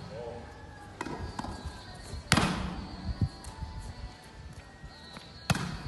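A volleyball smacking off a player's forearms and being caught, several sharp hits with the loudest about two seconds in, over background music.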